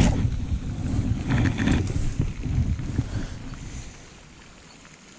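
Wind buffeting the microphone in uneven low rumbling gusts, with a few light clicks about one and a half seconds in. It dies down a little before the end.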